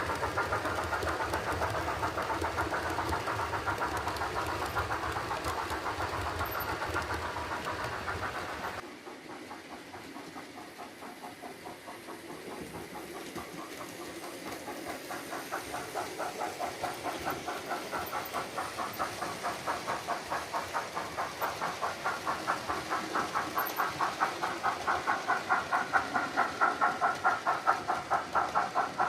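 Model steam locomotive's DCC sound decoder playing a steady rhythmic exhaust chuff as the loco runs on the layout, with wheel and track rumble. The sound drops abruptly about nine seconds in, then the even chuffs return and grow louder toward the end as the loco draws closer.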